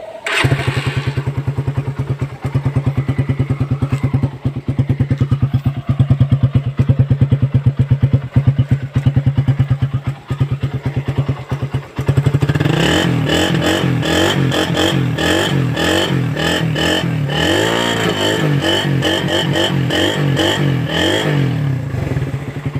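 A Suzuki Raider 150 carb's single-cylinder four-stroke engine running with the catalytic converter removed from its exhaust, at first a steady rapid exhaust beat. About twelve seconds in the sound turns louder and fuller, its pitch rising and falling as the engine is revved.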